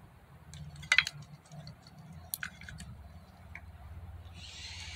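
Sharp little clicks and knocks as a fuel injector in a 2010 Mazda 6 engine is rocked loose by hand from its bore, the loudest about a second in. A steady hiss starts near the end.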